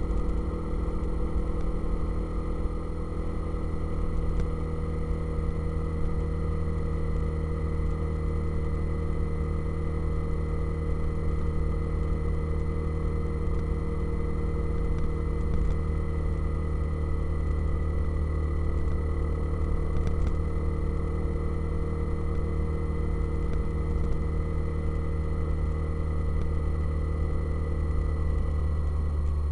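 Motorcycle engine running at a steady speed while riding, with wind rumble on the microphone.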